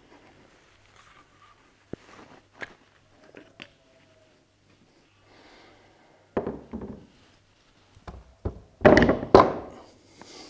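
A rifle's barrelled action and stock being handled and laid down on a wooden workbench. There are a few light clicks, then a thud about six seconds in and a louder run of thuds about nine seconds in.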